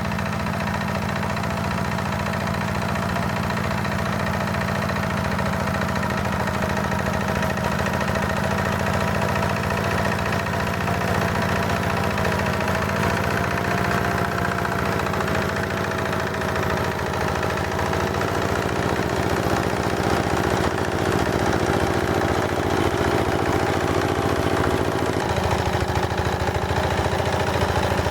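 Engine of a heavy walk-behind tractor running steadily while its rotary tiller cuts unbroken sod, the note wavering slightly with the load.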